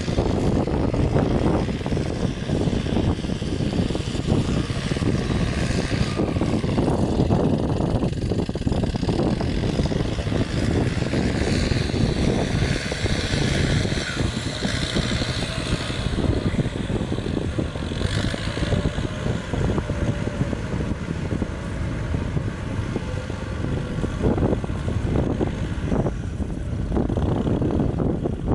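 Kubota 6040 tractor's diesel engine running steadily as it pulls its implement through a flooded, muddy field.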